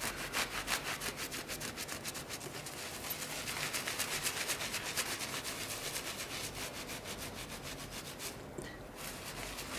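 Cloth rubbing over a grouted mosaic of small tiles in quick, repeated back-and-forth strokes, buffing the dried grout haze off the tile faces to bring up their shine.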